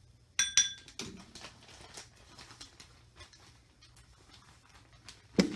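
A couple of sharp, briefly ringing clinks of a metal measuring spoon against a container, then a light scattered patter of small glitter pieces being poured and shaken into the mix, with a heavier knock near the end.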